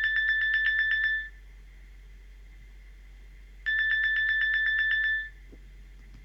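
Nokia 6220 Classic mobile phone playing its "Clock alert 2" alarm tone: rapid high electronic beeping, about eight beeps a second, in bursts of about a second and a half. One burst ends about a second in and the next starts nearly four seconds in.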